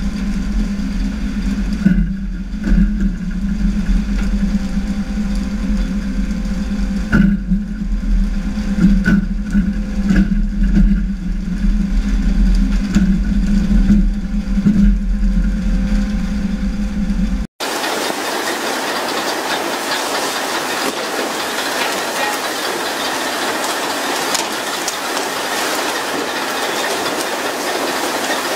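A fishing boat's engine running with a steady low drone and scattered knocks on deck. About two-thirds of the way through it gives way abruptly to a steady loud hiss of water jetting from the sprinkler pipes along the hull onto the sea, the spray used in pole-and-line skipjack fishing.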